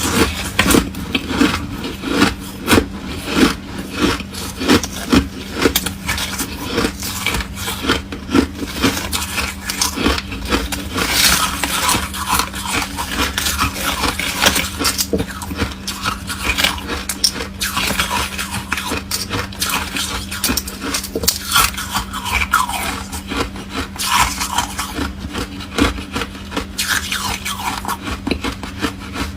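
Foam ice being chewed close to the microphone: a continuous run of short crunches.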